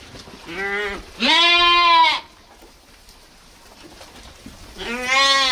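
Sheep bleating three times: a short bleat, then a longer, louder one, and a third near the end.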